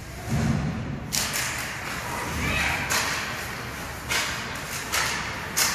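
Ice hockey play in an arena: a dull thud near the start, then the scrape of skates on the ice with several sharp clacks of sticks and puck.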